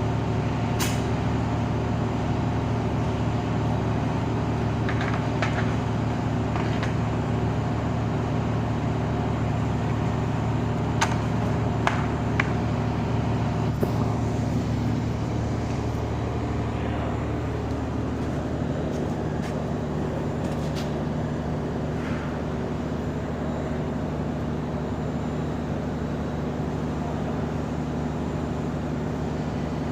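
A steady machine hum with a pitched drone that shifts to a different pitch about 18 seconds in, and a few scattered sharp clicks.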